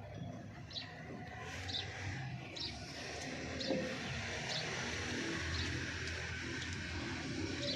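Domestic hen making low, soft vocal sounds, with short high chirps repeating about once a second.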